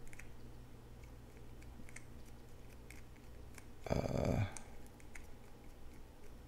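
Scattered soft clicks of a thumb joystick being pushed and clicked to turn the faces of a virtual cube, at an irregular pace. About four seconds in, a short breathy vocal sound from the player.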